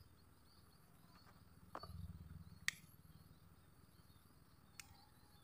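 Near silence with a few short, faint clicks and a soft rustle. The sharpest click, a little under three seconds in, is a cigarette lighter being struck to light a cigarette.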